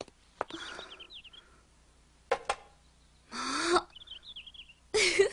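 Cartoon sound effects: a few sharp clicks and brief noisy swishes, with two short runs of high twittering chirps, about a second in and again near four seconds.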